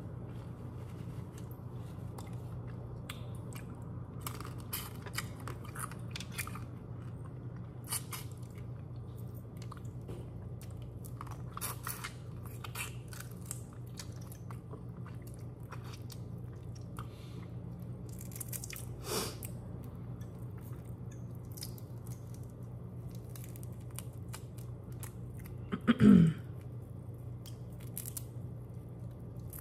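A person chewing and biting into head-on shrimp, with scattered crunchy clicks over a steady low hum. One brief, much louder sound comes near the end.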